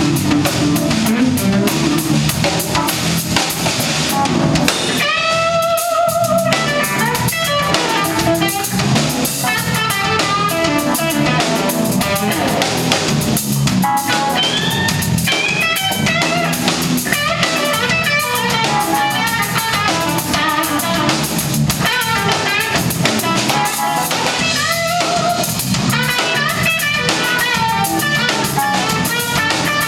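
Live funk band playing an instrumental stretch in a New Orleans funk style: semi-hollow electric guitar, keyboards, drum kit and bass. Some held notes bend in pitch about five and fifteen seconds in.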